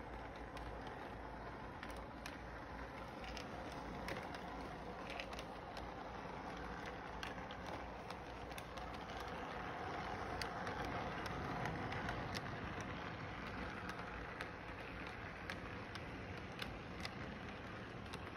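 Electric model train running on its track: a steady rolling rumble from the wheels and motor, with frequent small clicks, growing a little louder about halfway through as the cars pass close by.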